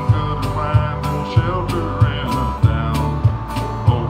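A country song performed live: a man singing over strummed guitar, with a cajon keeping a steady beat of about one hit every two-thirds of a second.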